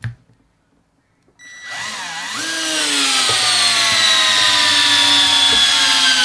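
Ryobi RSD18 18V cordless screwdriver running under load as it drives a large PZ3 screw into a wooden log. It starts about a second and a half in with a short dip in pitch. Then its whine sinks slowly as the screw goes in almost to its head.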